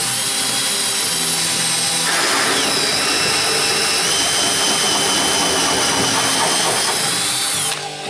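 Power drill running a hole saw through hardboard. A steady high motor whine dips in pitch as the teeth bite in at about two seconds, and a rasping cut carries on until the drill stops shortly before the end.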